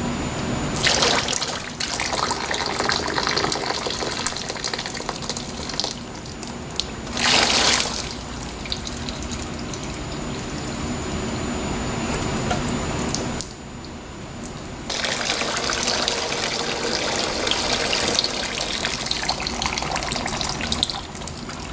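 Engine oil pouring and dribbling out of an AMC 360 V8 as the engine is rolled over with its oil pan off. A louder rush comes about seven seconds in, and a short lull comes around thirteen seconds.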